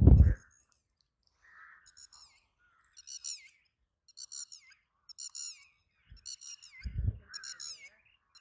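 A bird giving a series of sharp, high calls about once a second as it circles, which the speaker takes for a bird that may have chicks or eggs nearby. A loud low thump at the very start and a softer one near the end.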